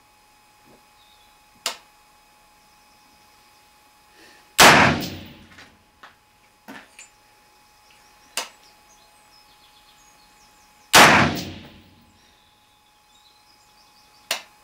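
M4 rifle shots: two loud shots about six seconds apart, each trailing off over about a second, with three shorter, quieter sharp cracks between them.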